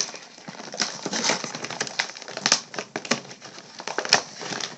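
Plastic toy packaging being worked open by hand: irregular crinkling with sharp clicks and snaps, several a second.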